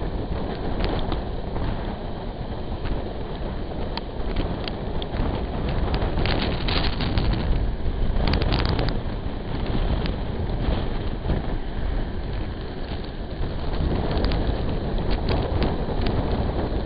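Wind buffeting the microphone from the window of a moving steam-hauled train, over the steady rumble of the train running along the rails, with scattered sharp clicks.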